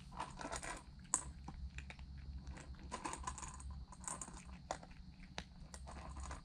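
Cat crunching food from a stainless steel bowl: a quick, irregular run of small crunches and clicks.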